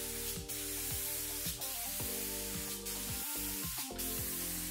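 Gravity-feed compressed-air spray gun hissing as it sprays a finish coat, the hiss swelling about once a second, over background music.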